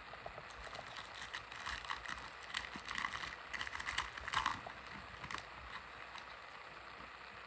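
Foil wrappers of 2022 Mosaic football cello packs crinkling and tearing as they are opened by hand, with the cards sliding and clicking out of them. The crinkling comes in irregular bursts and is loudest about halfway through.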